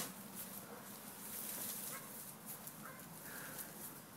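Faint rustling and scuffling of dogs moving about among garden plants, with a few short high chirps.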